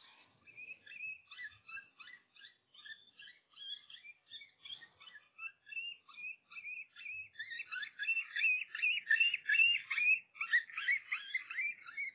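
Electronic predator call playing a prey-distress sound: rapid, high-pitched squeaks repeating many times a second, louder from about halfway through.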